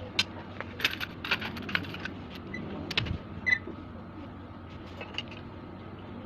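Scattered light metallic clicks and clinks of metal parts being handled, thickest in the first two seconds, with a short ringing ping about three and a half seconds in.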